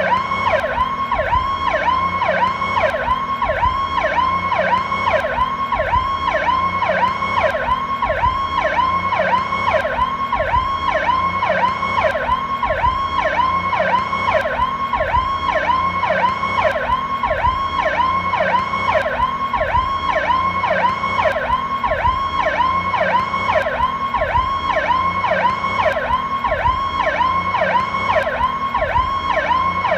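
Powercall ambulance siren sounding a fast, continuous yelp, its tone sweeping up and down about twice a second.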